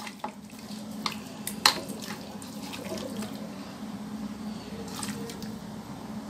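A hand squishing chicken drumsticks through a thick spiced marinade in a bowl: soft, wet squelching, with a couple of light clicks about a second in.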